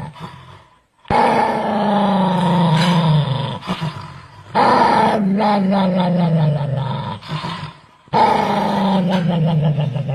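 An animal calling three times, each a long, loud call of two to three seconds that slowly falls in pitch, with short pauses between.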